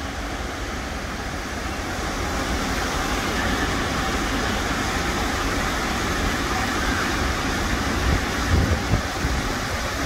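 Steady rushing of a waterfall plunging into a pool.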